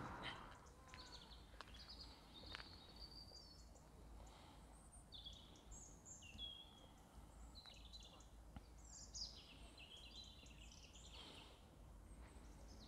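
Faint birdsong: small birds chirping and twittering in short, repeated high notes, over a low steady background rumble with a few faint clicks.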